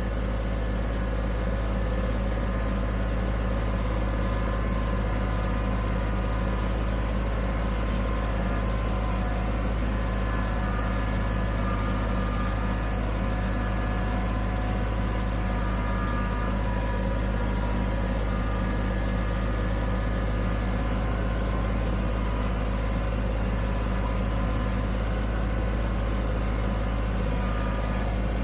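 Kubota BX25D sub-compact tractor's three-cylinder diesel engine running steadily while the tractor pushes snow with a plow mounted on its front loader.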